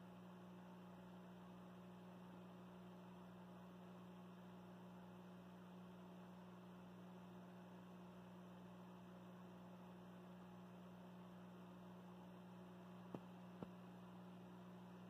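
Near silence: a faint, steady low hum, with two faint clicks about half a second apart near the end.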